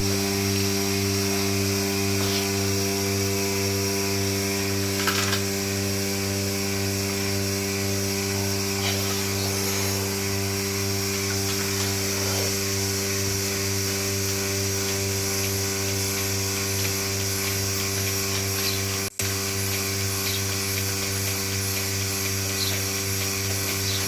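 Milking machine running with a steady mechanical hum, dropping out for an instant about nineteen seconds in.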